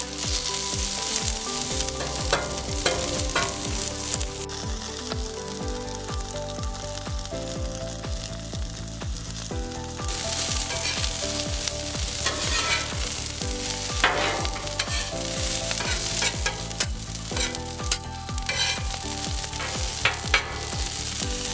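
Salmon frying on a Blackstone flat-top griddle, a steady sizzle over background music with a steady beat.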